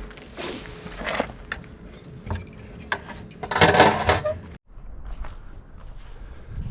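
A bunch of keys jingling and clicking, then clattering down loudly about three and a half seconds in. Just after that, a quieter low rumble of background takes over.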